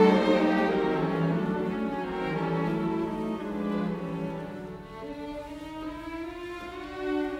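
Background music of slow bowed strings playing long held notes.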